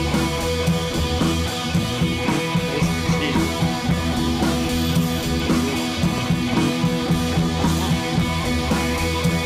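Background music with guitar and a steady drum beat, no singing.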